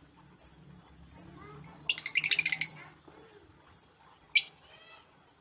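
Lovebird calling: a rapid burst of about ten shrill chirps about two seconds in, then a single sharp chirp and a short softer call near the end.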